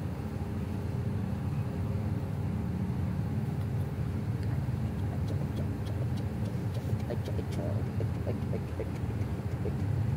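A steady low mechanical hum, like an engine running close by, with a few faint light ticks in the middle.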